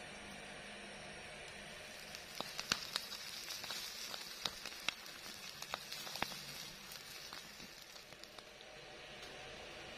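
Whole fish roasting on a stick over campfire embers, sizzling, with sharp crackles and pops starting about two seconds in and thinning out near the end.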